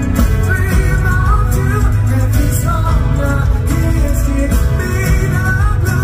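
Live pop song played loud through a concert PA: a band with heavy bass under a singing voice.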